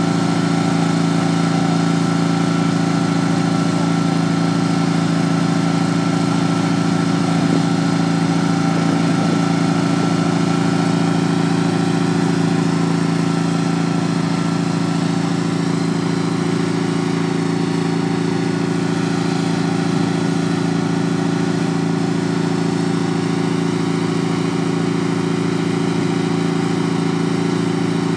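18-horsepower riding lawn tractor engine running steadily at a constant pitch, a little fainter in the second half.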